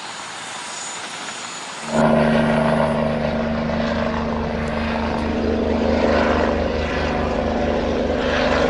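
A steady hiss, then about two seconds in a helicopter's engine and rotor sound comes in suddenly and runs steadily with a fast low pulsing.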